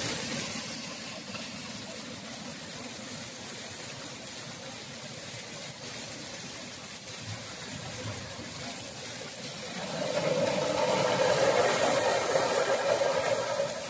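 Steady hiss of heavy rain and running floodwater, with a louder rushing swell from about ten seconds in that lasts around three seconds.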